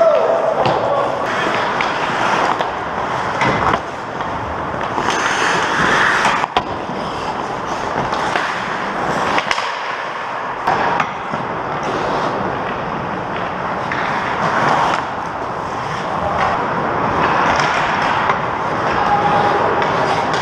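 Ice hockey skates scraping and carving on rink ice, with sharp knocks of sticks and puck every few seconds.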